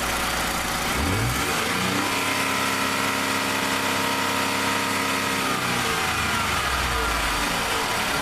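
2015 Ford F-150's 2.7 L twin-turbo EcoBoost V6 revving up from idle about a second in, holding steady at higher revs for a few seconds, then falling back to idle. There is no rattle from the pin, which has been damped with thread locker; the only other noise is the turbo's own internal noise.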